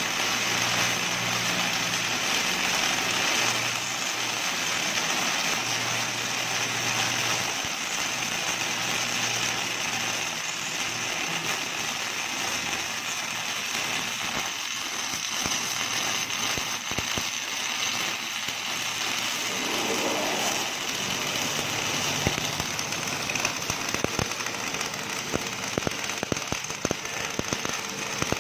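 Automatic MIG welding arc running along an axle seam: a steady crackling hiss over a low machine hum, with sharper spatter pops crowding in over the last several seconds.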